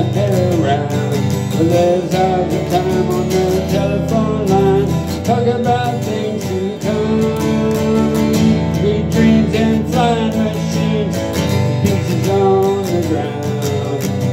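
Harmonica playing a melody with sliding notes over a steadily strummed acoustic guitar.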